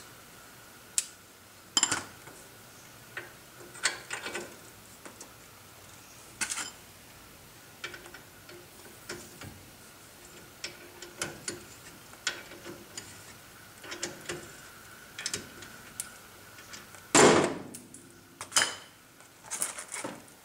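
Ratchet wrench clicking in short, irregular strokes as the bolts holding a front brake caliper are backed out, with metal tool knocks and one louder clatter near the end.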